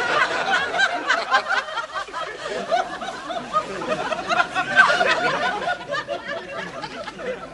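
Studio audience laughing, many voices at once, swelling to a louder peak about five seconds in.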